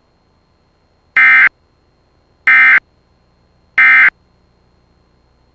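Emergency Alert System end-of-message signal: three short, identical buzzy bursts of digital data tone, about a second and a quarter apart, marking the end of the alert broadcast.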